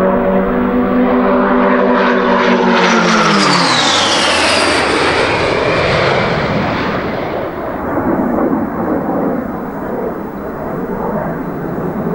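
Gloster Meteor jet flying past, loud and close. Its engine tones and high whine drop sharply in pitch as it passes, about three to four seconds in, then the roar slowly fades as it pulls away.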